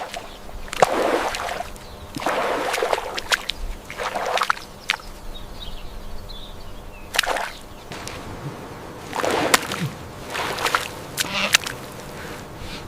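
Water splashing and sloshing in a series of short surges, about seven in all, with a few sharp clicks among them.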